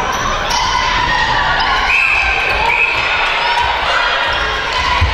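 Court sounds of a netball game on a wooden indoor floor: players' shoes squeaking several times, with players' voices echoing around a large hall.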